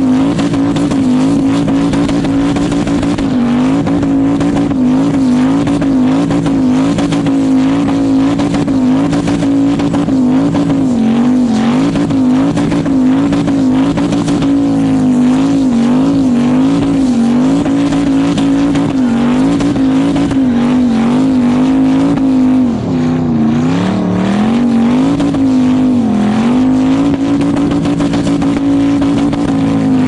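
Turbocharged LS V8 held at high revs through a long burnout, its pitch wavering up and down as the throttle is worked, over the hiss of spinning tires. The revs drop briefly twice about two-thirds of the way through.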